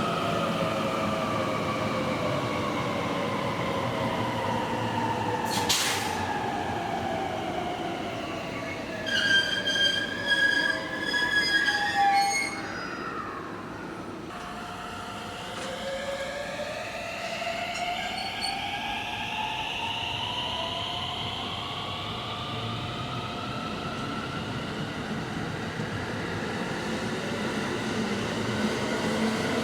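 Electric train's motor whine falling steadily in pitch as it slows, with a few short loud high-pitched squeals or tones about nine to twelve seconds in. Then, after a brief lull, the whine returns and climbs in pitch as a train accelerates away.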